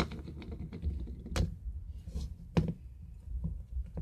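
Handling noise: scattered light clicks and a few sharper knocks, the loudest about a second and a half in and again a second later, as slime and a small plastic bowl are handled on a wooden floor.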